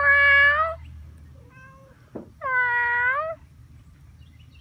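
Domestic cat meowing twice: a short meow right at the start, then a longer one about two seconds later that dips in pitch and rises again at its end.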